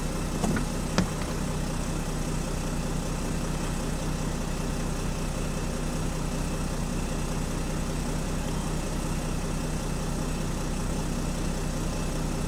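Jeep Grand Cherokee's 3.0-litre OM642 V6 common-rail diesel idling steadily, with two light clicks about half a second and one second in.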